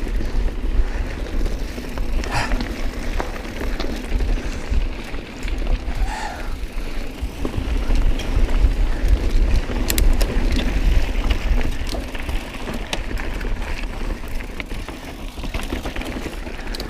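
Mountain bike riding over a rocky trail: a steady low rumble of tyres and frame vibration, with many sharp clicks and knocks as the wheels hit rocks.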